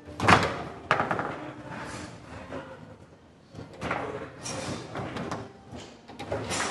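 Foosball table in play: an irregular run of sharp clacks and knocks from the ball being struck and the steel rods being shoved and spun, the loudest near the start.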